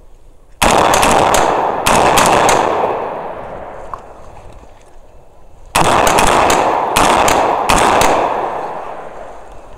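Rapid semi-automatic gunfire in two strings: a fast run of shots starting about half a second in, and a second run about halfway through, each trailing off in echo.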